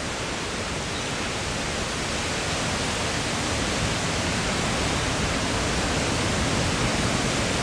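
Steady rushing noise of a tropical cyclone's wind and heavy rain, growing slowly a little louder.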